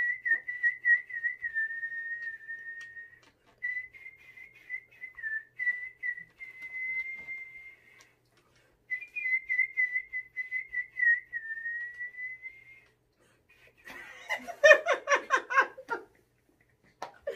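A person whistling a tune: one clear, wavering note line sung out in several phrases with short breaks, stopping about thirteen seconds in. A louder short burst of voice follows near the end.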